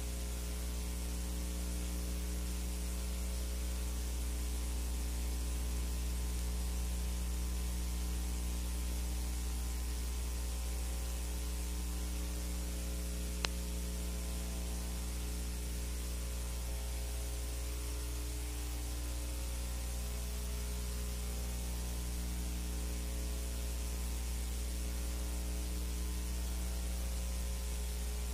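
Steady electrical mains hum with hiss, the empty soundtrack of a silent film transfer, with a single click about halfway through.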